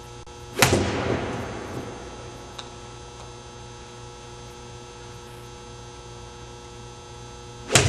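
Two golf shots hit off a hitting mat, about seven seconds apart: each a sharp crack of club on ball, followed by a decaying echo in the small indoor hitting bay. A steady electrical hum runs underneath.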